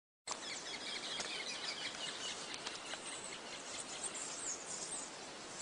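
Outdoor ambience: birds chirping and insects calling over a steady background hiss.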